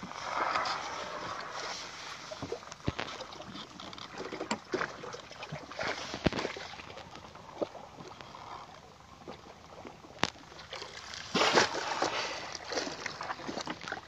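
Water sloshing and splashing against the side of a small boat, with scattered knocks and a louder burst of water noise near the end.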